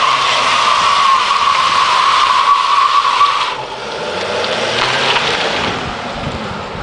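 Mercedes-Benz Vito van's V6 diesel held at high revs with a rear tyre spinning in a burnout, giving a loud, steady tyre squeal. About three and a half seconds in the squeal stops suddenly as the tyre grips, and the engine is heard pulling the van away, fading.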